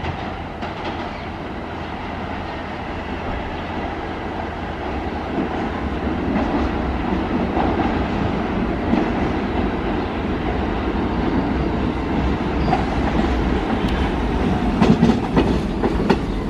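R46 subway train approaching and running into the station, its wheels rumbling and clacking over the rail joints and growing gradually louder. Sharper clacks come near the end as the lead car reaches the platform.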